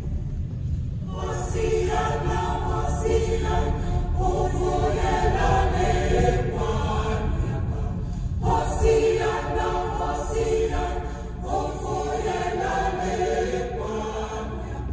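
Unaccompanied choir singing, in phrases several seconds long with short breaks between them, over a steady low rumble.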